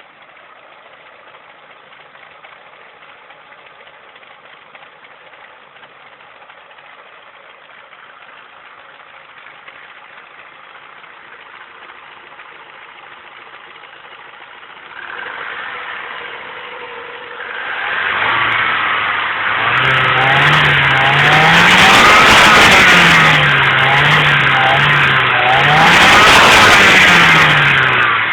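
Ford Zetec-E 2.0 16V four-cylinder engine, said to make a strange noise, running quietly at idle, then revved up and back down twice, loudest near the end.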